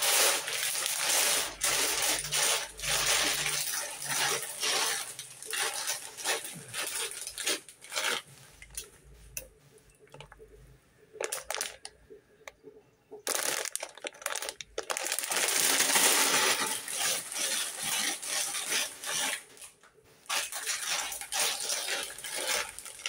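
Plastic bag of dry pasta being handled: crinkling plastic and the pasta rattling inside, in long irregular bursts with a short lull in the middle.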